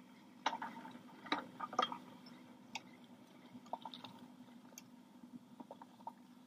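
A skier boarding a surface ski lift: scattered clicks, knocks and crunches of skis, gear and the lift pole, most of them in a cluster in the first two seconds and sparser after, over a low steady hum.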